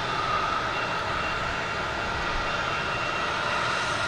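Jet airliner engines running steadily as the plane rolls out on the runway, heard from across the airfield as an even rush with a sustained whine.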